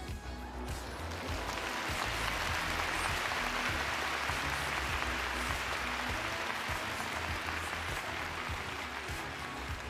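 Arena crowd applauding, swelling about a second in and dying away near the end, over background music.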